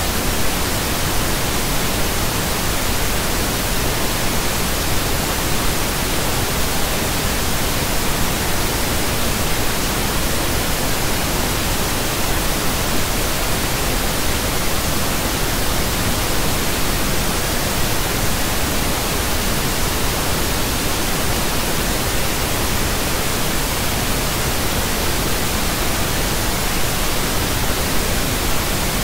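Pink noise: a steady, even hiss with no changes.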